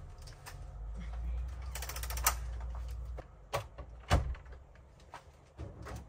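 A room door and someone coming in: a low rumble for the first few seconds, a run of light clicks, then a few sharp knocks, the loudest about four seconds in.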